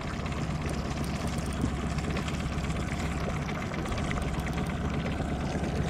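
Steady low hum of a boat motor running at idle.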